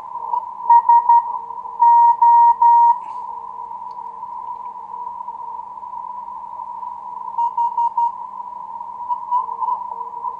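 Morse code (CW) from a shortwave transceiver's speaker: a beep keyed in dots and dashes over a narrow band of receiver hiss, with a quick run of short beeps and then three long dashes in the first few seconds and more, fainter keying near the end. A weaker, lower-pitched station keys on and off alongside it as interference (QRM).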